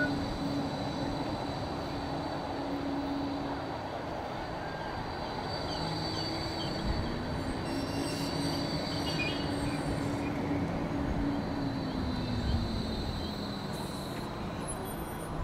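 Bombardier E-class trams running past on the light rail line: wheels rumbling on the rails under a thin, steady high-pitched squeal. The electric drive gives a low whine that fades a few seconds in, then a second whine rises as another tram pulls past and falls away near the end.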